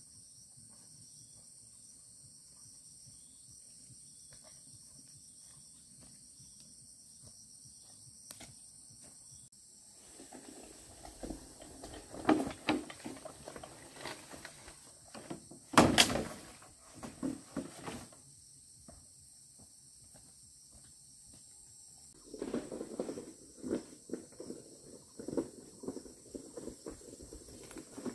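Faint steady background for the first third, then scattered knocks, clatters and handling noises of hand building work. One sharp loud knock comes just past halfway, and after a short lull the knocking picks up again near the end.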